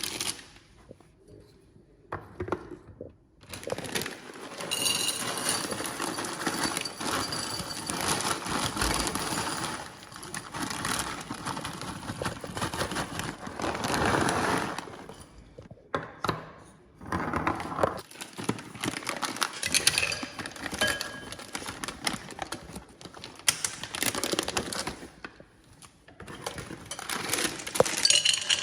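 Nuts and dried fruit being poured into small glass jars: a dense rattle of pieces tumbling against the glass with sharp clicks, coming in bouts with short pauses between.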